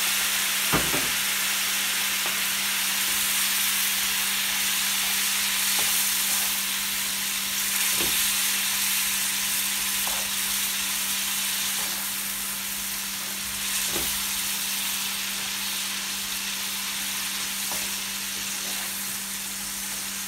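Onion-and-tomato masala with a splash of hot water sizzling steadily in a frying pan over a gas burner turned up high, while a wooden spatula stirs it, with a few light knocks against the pan.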